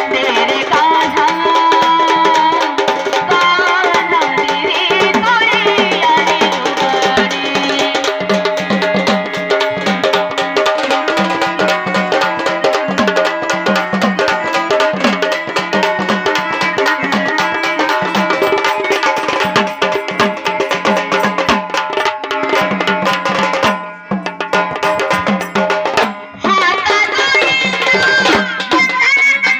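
Instrumental interlude of a Marathi gavlan folk song: rapid hand-drum strokes under a sustained melody and repeating bass notes, dropping out briefly twice near the end.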